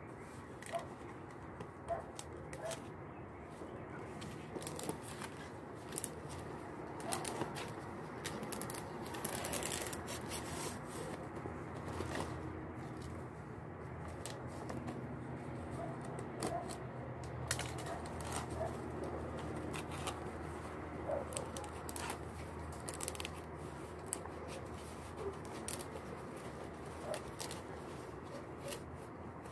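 Large fresh green leaves being stripped and torn by hand: irregular crisp rips and rustling as strips are peeled off along the leaves.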